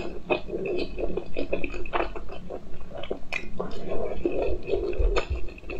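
Wet, squishy chewing of raw salmon sushi, with many small irregular mouth clicks.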